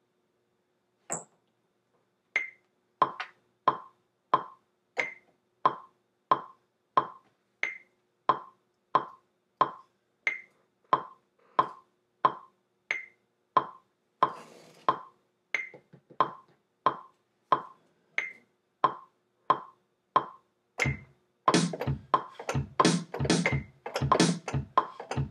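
Recording in Maschine over a steady metronome-like click, about one and a half ticks a second with the first of every four accented. About 21 s in, drum-machine hits from Reason's ReDrum come in over it, denser and with a deep low end, played by hand and off the beat, as the player admits.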